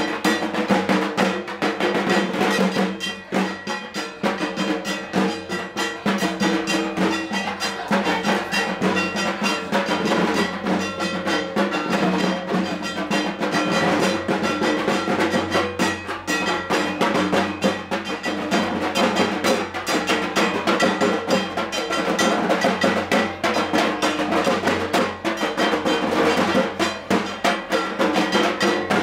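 Dhak drums beaten fast and without a break for the arati of a Durga Puja, dense stick strokes with steady pitched tones ringing above the rhythm.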